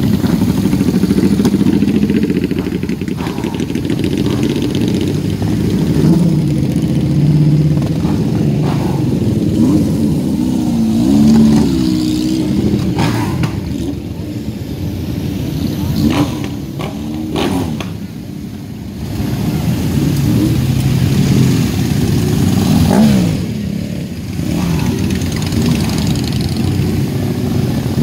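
Several motorcycle engines running and revving, their pitches rising and falling over one another. The sound dips briefly about two-thirds of the way through.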